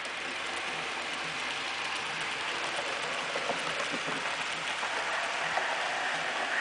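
HO-scale model freight train's hopper wagons rolling along the track, a steady rushing rattle with light regular clicking from the wheels.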